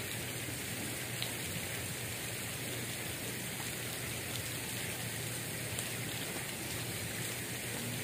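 Steady hiss of falling or splashing water, even throughout with no distinct events.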